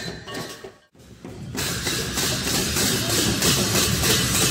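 Large hand cymbals clashed over and over amid a crowd, giving a dense metallic wash. The sound cuts out briefly about a second in.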